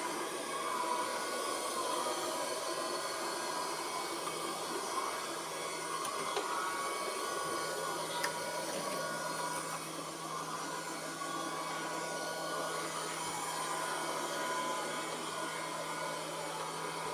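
Robot vacuum-mop running steadily as it cleans and mops a corner of the floor. It is an even motor whir with a low hum and a few faint knocks.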